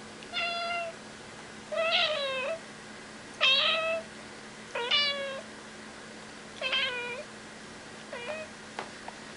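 A cat meowing repeatedly: about six separate meows, each under a second long and spaced roughly a second and a half apart, the last one short.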